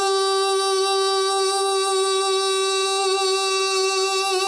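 A man singing one long, steady high G on "do". The note is recorded hot enough to clip, distorting, and the singer calls it badly out of tune.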